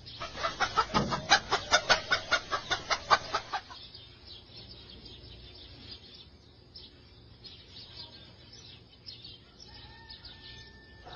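A chicken clucking rapidly, about five clucks a second, then dropping to faint, scattered clucks after about three and a half seconds.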